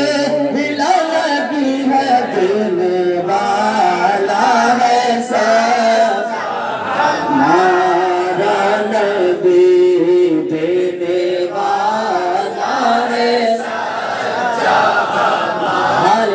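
A man singing a naat, a Muslim devotional song, into a microphone over loudspeakers, drawing out long notes that waver and bend in pitch.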